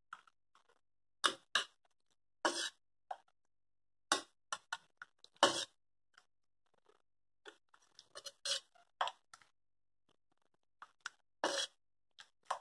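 Steel ladle scraping and clinking against a steel pot and a glass bowl as thick tamarind chutney is ladled from one into the other. The scrapes and clinks come in short, irregular strokes with quiet gaps between them.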